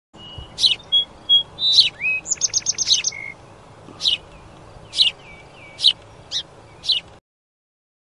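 A small songbird chirping: sharp, high chirps, a few short clear whistled notes and a quick trill of about eight notes near the start, then single chirps about once a second. It stops shortly before the end.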